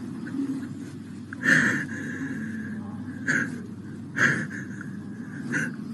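Laboured human breathing, with four louder gasping breaths at uneven intervals over a steady background noise.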